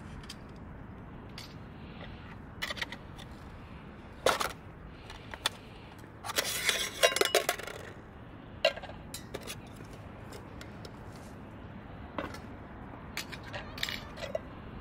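Metal pieces clinking and scraping against each other: scattered single clinks, with a dense run of clinks and short rings from about six to seven and a half seconds in.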